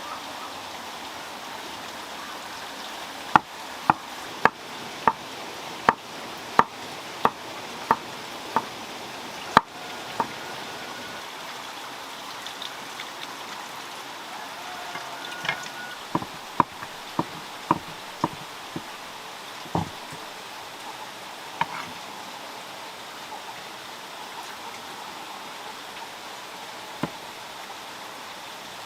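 Sharp knocks, a little under two a second, in two runs: about ten starting a few seconds in, then half a dozen more past the middle, with a few stray ones after. Under them runs a steady rushing noise like running water or rain.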